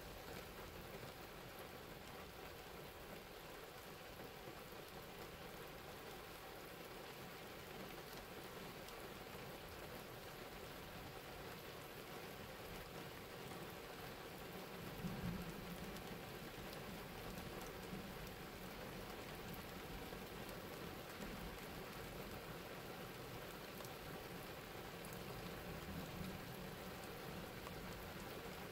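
Light rain falling steadily, with a brief low rumble about halfway through.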